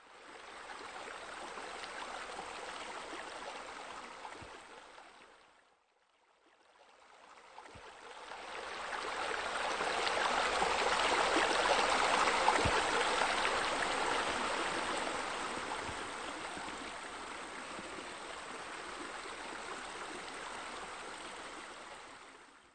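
Steady rush of water falling and splashing, the sound of pool sheer descents and bubblers running. It fades in, drops out briefly about six seconds in, then swells back louder before settling to a steady level.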